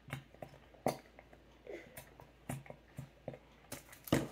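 Scattered light taps and clicks of small objects being handled on a tabletop, with a louder knock near the end.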